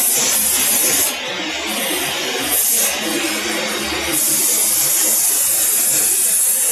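Compressed-air paint spray gun hissing in bursts as the trigger is pulled and let go: a burst of about a second, a short one near the middle, then a longer spray through the last couple of seconds.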